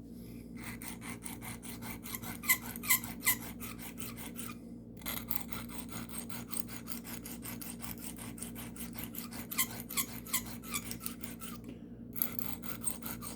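Carbon steel pocket-knife blade stroked rapidly back and forth on a sharpening stone, an even scraping rasp that stops briefly twice. The edge is being worked after a burr has been raised on both sides.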